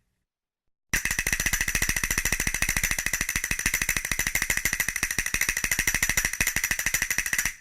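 A percussion instrument with a ringing metallic tone played in a fast, even roll of about a dozen strokes a second, starting about a second in and stopping shortly before the end.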